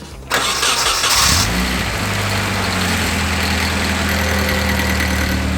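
Nissan 240SX S13's four-cylinder engine starting: it catches about a third of a second in with a sudden rush of noise, the revs rise briefly, then it settles into a steady idle.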